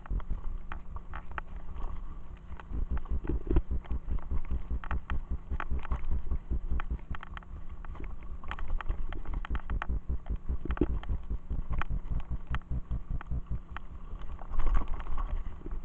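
Mountain bike riding over a bumpy forest dirt track: a steady low rumble with dense knocks and rattles as the bike jolts over the ground. The noise is fairly even, with slightly louder jolts a few times.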